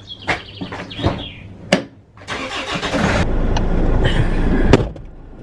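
A few clicks and knocks as a car door is opened and someone gets in. A Land Rover Freelander's engine then cranks briefly, catches and runs steadily, and a car door slams shut near the end.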